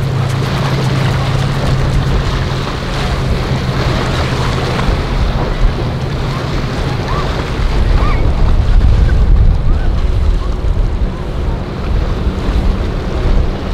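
Yamaha jet boat running at speed past the shore, its engine and hull spray over rushing waves. Wind buffets the microphone, heaviest from about eight seconds in.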